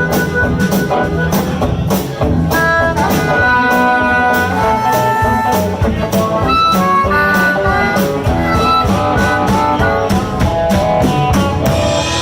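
Live blues band playing an instrumental passage: a steady drum beat under a lead melody line.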